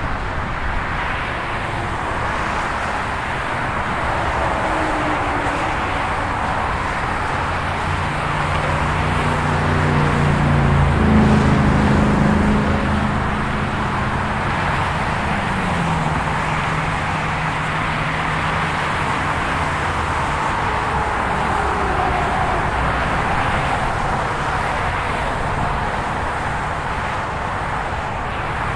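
Steady tyre and engine noise of freeway traffic streaming past. About eleven seconds in, one louder vehicle with a low engine hum goes by, its pitch dropping as it passes.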